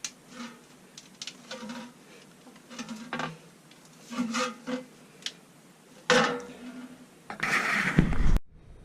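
Thin sheet-metal flue pipe being handled and worked by hand: scattered clicks, light clanks and scraping of metal rubbing on metal, with a louder stretch of rubbing and rattling near the end that stops abruptly.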